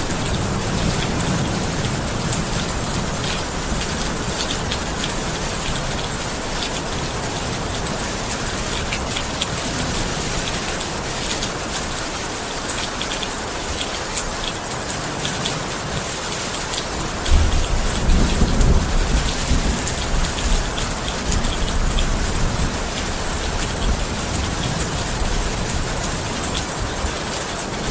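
Steady rain falling hard, with a low rumble of thunder that starts suddenly a little past halfway and rolls on for several seconds.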